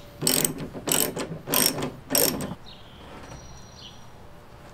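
Socket ratchet wrench on an extension clicking through four strokes about two-thirds of a second apart as it runs a nut onto a bolt. The clicking stops about two and a half seconds in.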